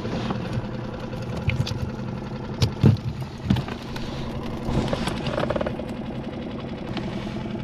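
Boat outboard motor idling steadily, with a few sharp knocks between about two and a half and three and a half seconds in.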